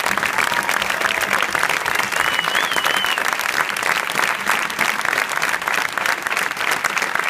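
A large crowd applauding steadily, with dense clapping from many hands.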